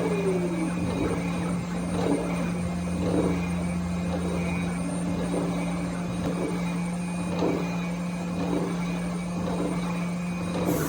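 CNC spindle running at 13,500 RPM with a steady hum as a 6 mm end mill faces a part, the cut swelling about once a second as the tool sweeps back and forth across the workpiece. Near the end a sudden hiss starts with a falling whistle.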